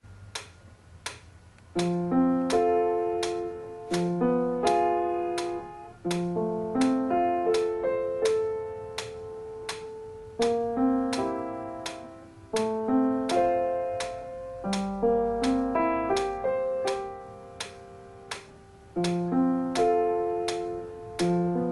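Upright piano played at a slow pace, starting about two seconds in: phrases roughly every two seconds, each opening on a low note under a melody, with the notes left ringing and fading on the sustain pedal.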